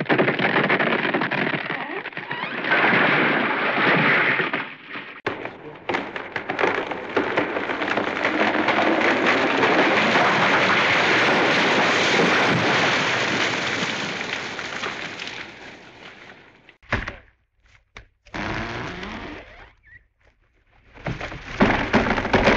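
A run of Hanna-Barbera cartoon crash sound effects: clattering, breaking impacts, then a long crash of tumbling debris that fades out over about ten seconds, followed by a few short crashes.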